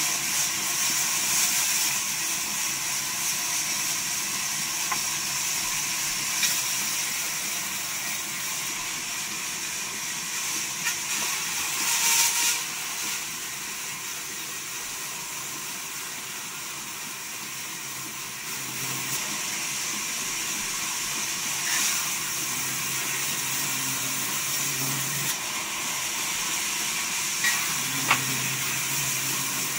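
Vertical band saw running and cutting timber: a steady hiss of the blade through the wood, louder for a moment about twelve seconds in, with a couple of sharp knocks near the end.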